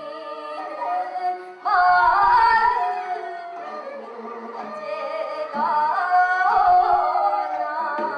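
Music: Korean traditional-style singing with instrumental accompaniment, the voice sliding and wavering in pitch over steadier held notes. It swells loudest at about two seconds in and again near six to seven seconds.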